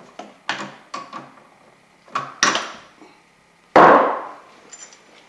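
Sharp knocks and clatters from handling a drill fitted with a wire-twister bit and a bundle of electrical wires, a few separate taps followed, nearly four seconds in, by the loudest event, a short, noisy burst that fades out.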